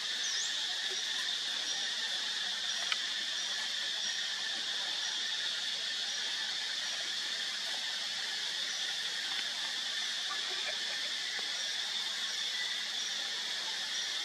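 Steady high-pitched drone of forest insects, with a faint regular pulse above it. One sharp click about three seconds in.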